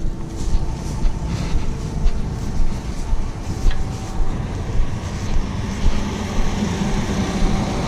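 John Deere combine harvester engine running at a steady idle: an even low rumble with a faint steady hum above it.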